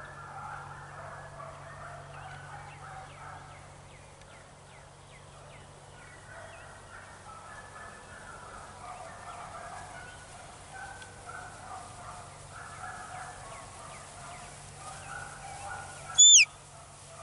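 Birds chatter and call steadily, a fowl- or turkey-like gabble. About a second before the end comes one sharp, loud falling whistle: a handler's whistle signal to a herding dog working cattle.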